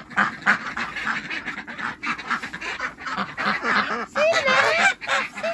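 A flock of ducks quacking rapidly and continuously. Geese honk among them, with a longer wavering honk a little over four seconds in.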